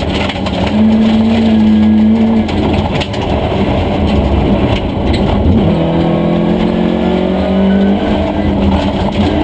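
Volvo 240 Group H rally car's engine heard from inside the cabin, running hard on a gravel stage with gravel and road noise underneath. Its note steps up and down at around two and a half and five and a half seconds, then climbs steadily through the last few seconds.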